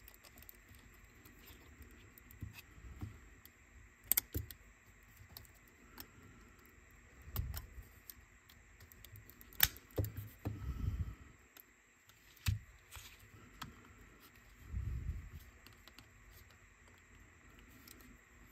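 Scattered small clicks and taps of a cassette Walkman's plastic and metal parts being handled and fitted together, with a few soft low thuds between them.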